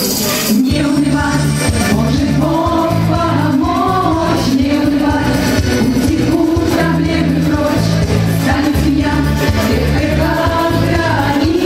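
A song: a voice singing a melody over a backing band with a steady, repeating bass line.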